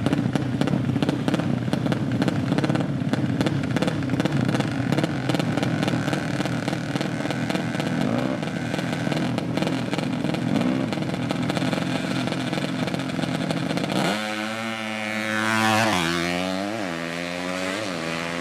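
A 200cc motorcycle engine running with a rough, clattering note. About fourteen seconds in, the sound changes abruptly to a smoother, cleaner tone that rises and falls in pitch several times as the engine is revved.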